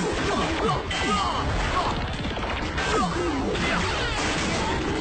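Staged fight sound effects: repeated punch and whack hits and swishes, mixed with short cries that fall in pitch, over background music.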